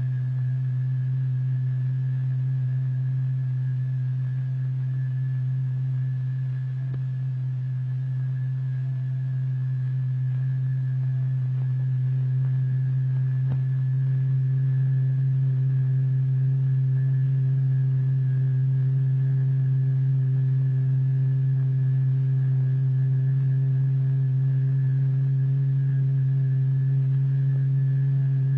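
Steady low test tone driving the vibrating plate, with faint higher overtones; it gets a little louder about halfway through. This note is strong enough to throw the paste on the plate into spikes and eruptions.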